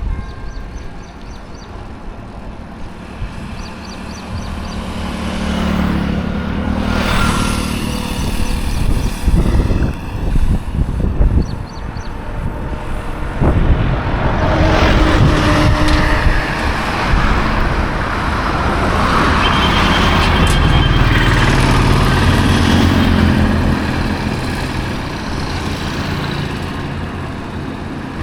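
Highway traffic, with several vehicles passing close by one after another, each swelling and then fading, over a steady road rumble. The loudest passes come from about ten to sixteen seconds in and again around twenty seconds in.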